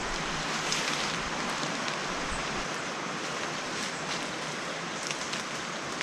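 Steady rush of a waterfall's falling water, with a few faint rustles of brush.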